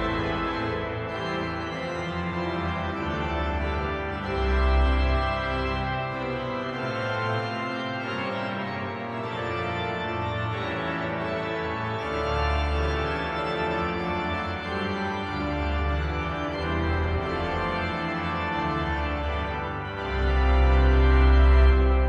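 Sampled pipe organ (Blackburn Cathedral sample set) playing a march in full sustained chords over deep pedal bass notes. Several bass swells come and go, and the loudest, a held chord, arrives near the end.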